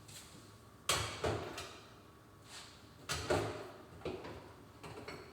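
Kitchen handling noise: a series of sharp knocks and clatters, about one a second.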